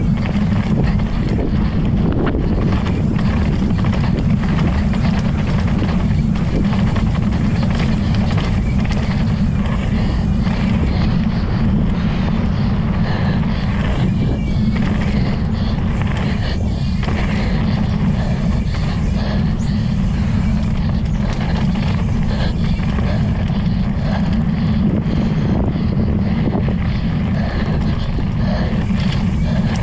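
Wind buffeting the camera microphone as a mountain bike rides fast down a dirt trail, a steady low rush throughout. Short knocks and rattles from the bike break in now and then over the rough ground.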